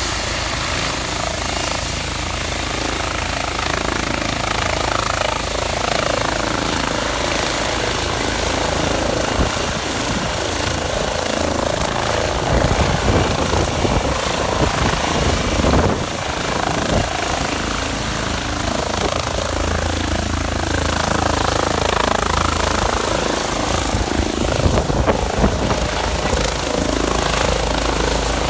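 Air ambulance helicopter running at full power as it lifts off and climbs away, a loud steady rotor and turbine noise with a high whine that rises slightly in the first few seconds.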